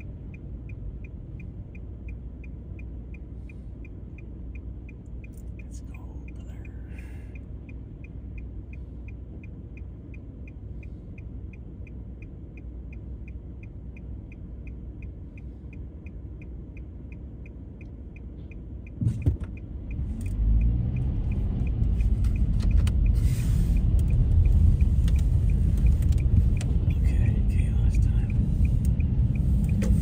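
Inside a car's cabin: low engine rumble with the turn-signal indicator ticking steadily. About 19 seconds in there is a loud knock, then the car pulls away and the engine and tyre noise grows much louder.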